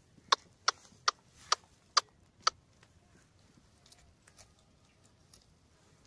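A herder's tongue clicks calling goats along: six sharp clicks over about two and a half seconds, roughly two a second.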